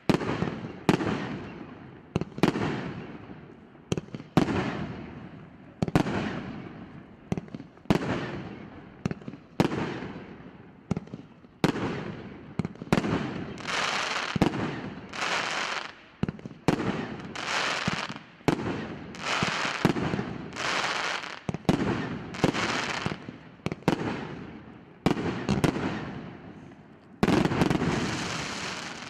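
R8620 'Povelitel ognya' multi-shot firework firing shot after shot, about one a second. Each shot is a sharp bang followed by a crackling hiss that fades, and a longer, denser burst comes near the end.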